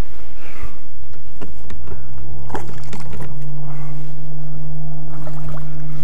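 A steady low motor hum that starts about two seconds in, with scattered sharp clicks and knocks.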